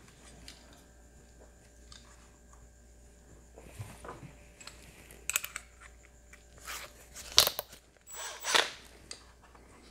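Quiet handling noises as small tools and parts are picked up and moved: a few short, sharp clicks and scrapes, the clearest a little past halfway and again a couple of seconds later. No drill is running.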